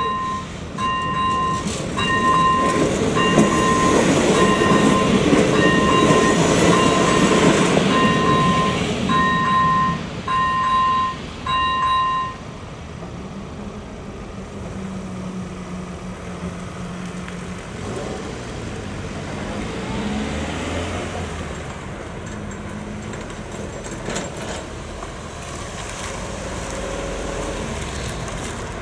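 ZV-01 electronic level-crossing bell ringing about once a second while a train rumbles over the crossing. The bell stops about twelve seconds in, and after that road vehicles start moving over the crossing as the barriers lift.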